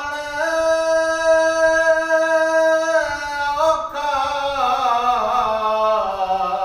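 A man singing Punjabi Sufi kalam unaccompanied. He holds one long note for about three seconds, then the melody steps and slides steadily downward.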